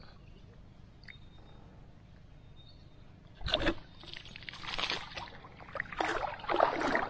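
Water sloshing and splashing close by as an angler moves while standing waist-deep in the reservoir: a sudden splash about three and a half seconds in, then two longer stretches of sloshing and dripping.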